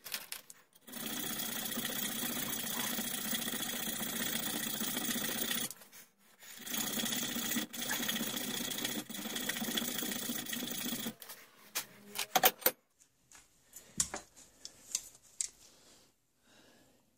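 Hand file rasping rapidly on a small steel rear sight clamped in a bench vise: two long runs of fast, even filing strokes, the first about a second in and the second after a short pause. Near the end the filing stops and there are a few light clicks and knocks of metal parts being handled.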